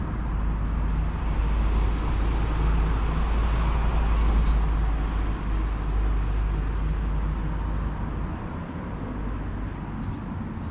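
Road traffic: a motor vehicle passing with a low rumble, growing louder to a peak about four seconds in and fading away after about eight seconds.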